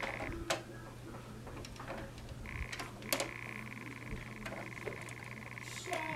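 Screws being tightened by hand tool: scattered sharp clicks and taps, joined about two and a half seconds in by a rapid buzzing rattle, over a steady low hum.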